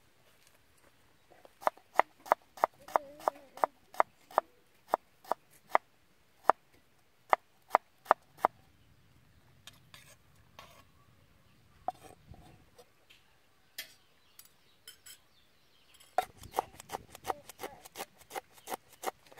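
Kitchen knife chopping on a wooden cutting board: a run of sharp chops about three a second, a few scattered knocks in the middle, then quicker chopping of fresh dill near the end.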